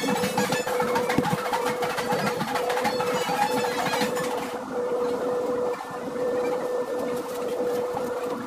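Small electric motor of a polishing tool running steadily with a constant high hum, under other sound that thins out about halfway through.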